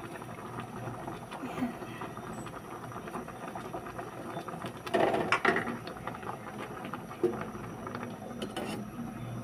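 Pot of saluyot leaves and bamboo shoots bubbling steadily on a stove. About five seconds in, a louder clatter and scrape as a plastic spatula stirs the pot, with a couple of lighter knocks near the end.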